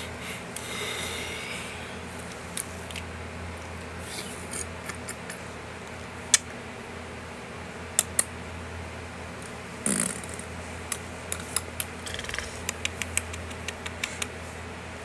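Scattered sharp clicks and taps over a steady low hum. The clicks come quickly from about eleven seconds on, with a short breathy rustle about ten seconds in.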